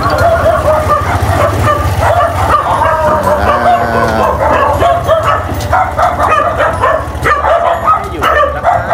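Dogs barking and yelping again and again, over the low steady running of a motorcycle engine.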